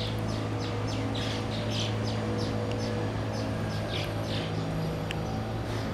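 A songbird chirping over and over, short falling chirps at about three a second, over a steady low hum.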